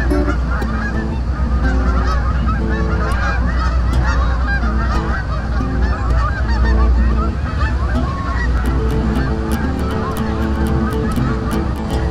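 A flock of Canada geese honking, many overlapping calls in a dense, unbroken chorus, over a steady low rumble.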